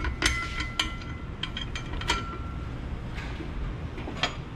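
Metal parts of a CVT secondary clutch clinking and knocking together as they are handled and fitted back together: several sharp clinks with a brief metallic ring, most of them in the first two seconds and one more near the end.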